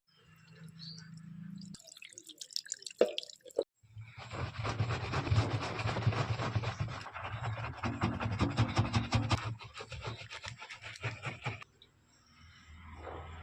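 Scrubbing the rubber door gasket of a Samsung front-load washing machine: a quick run of scratchy clicks, then rapid, steady rubbing from about four seconds in that stops shortly before the end.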